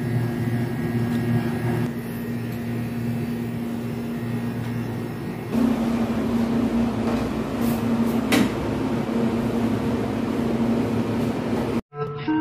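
Steady low machine hum with an even background noise that gets louder about halfway through, and two short sharp knocks around eight seconds in. It cuts off abruptly near the end.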